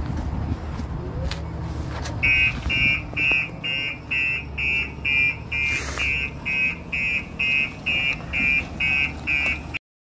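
Truck engine running with a low rumble; about two seconds in, a reversing alarm starts beeping a little over twice a second as the truck backs up. The sound cuts off abruptly near the end.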